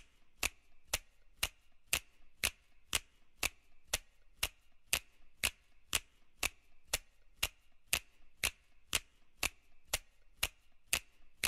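Steady, even ticking, about two sharp ticks a second, like a clock.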